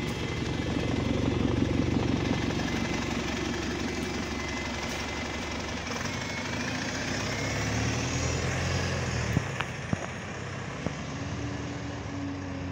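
Single-decker diesel bus's engine running at the stop, then pulling away with its pitch rising as it accelerates. A few sharp clicks between about nine and eleven seconds in.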